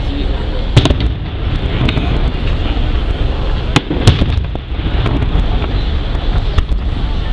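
Aerial fireworks bursting: a sharp bang about a second in and two more close together near four seconds in, with smaller cracks between, over a steady low rumble.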